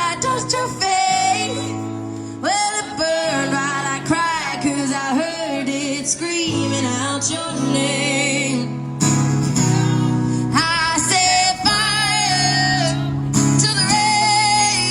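Young female voice singing a pop ballad over guitar accompaniment, with long held notes that waver in pitch.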